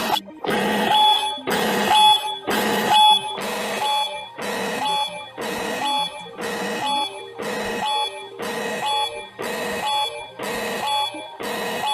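Emergency Alert System style alarm sounding: harsh, buzzing blasts pulse about twice a second over steady high alert tones.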